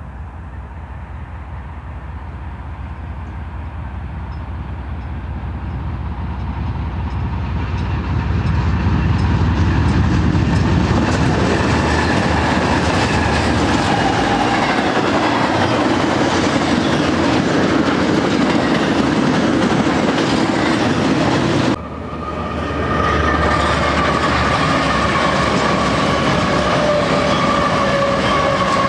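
BNSF freight train approaching and passing: a rumble that grows louder over the first several seconds as it nears, then double-stack intermodal cars rolling by with wheels clicking over the rail joints. After an abrupt cut about 22 seconds in, a lash-up of BNSF diesel locomotives passes close by, its running noise carrying a steady whining tone.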